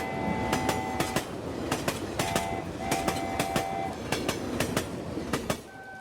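Train rolling along the track, its wheels clacking over rail joints with a steady squealing tone that comes and goes. It stops suddenly near the end.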